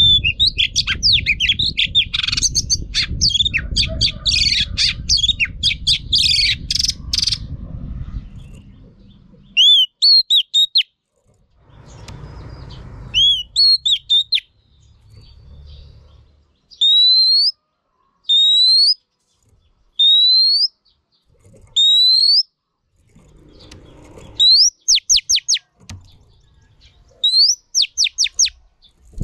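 Female oriental magpie-robin calling: a dense run of rapid chattering notes over a low rumble for the first several seconds, then single rising whistled notes about every second and a half, and near the end two quick bursts of short sharp notes.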